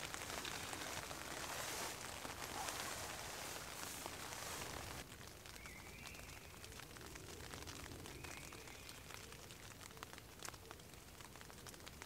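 Rain pattering on a tent's fabric, heard from inside the tent as a soft steady hiss of many small drop ticks, a little quieter from about five seconds in.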